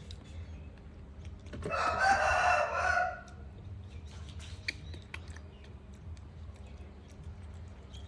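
A rooster crowing once, about a second and a half long, starting near two seconds in. Faint crunching clicks are heard around it.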